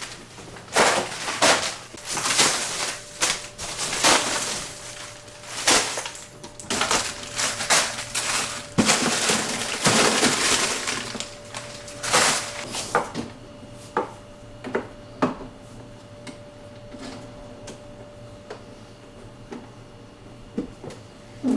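Frozen food packages being taken out of a freezer drawer and set down: irregular crackling of stiff frozen plastic bags and clunks of hard items. It is busy for about the first thirteen seconds, then thins to occasional clicks and knocks, over a faint steady hum.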